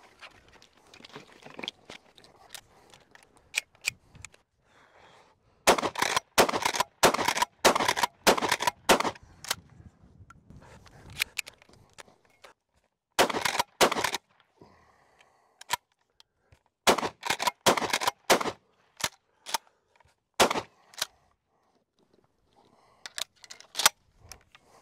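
Twelve-gauge shells being handled and pushed one by one into the tube magazine of a Rock Island All Gen 12 pump shotgun: several rapid bursts of metallic clicks and clacks with short pauses between them.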